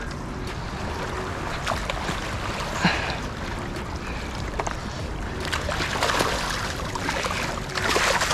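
Steady rushing noise of turbulent river water below a dam spillway. Just before the end, a fish splashes at the surface close by.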